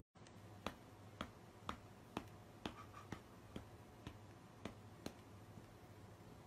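Near silence broken by a run of faint, sharp clicks, about two a second, that stop about five seconds in.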